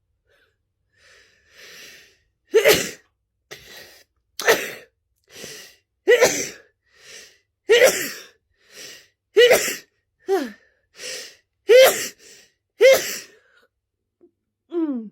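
A person in a sneezing fit, sneezing about eight times in quick succession, roughly every second and a half, with a short gasping in-breath before each sneeze. A short falling vocal sound comes near the end.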